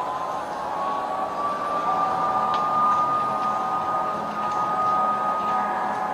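Emergency vehicle siren wailing: a slow rise in pitch held high for several seconds, starting to fall near the end.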